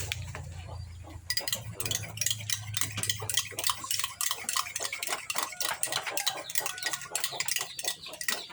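A spoon stirring a liquid remedy in a cup, clinking rapidly against the sides; the stirring starts about a second in. A low steady hum sits beneath it through the first half.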